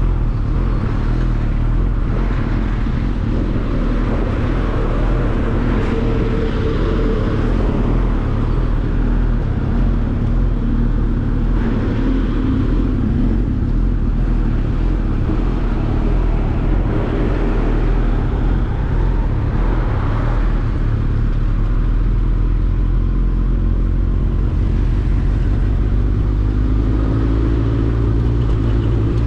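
Superbike being ridden under way: engine running with a steady low rumble of riding noise.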